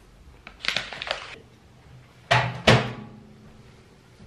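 A soft rattle, then a door knocking shut twice, about half a second apart; the second knock is followed by a brief ringing.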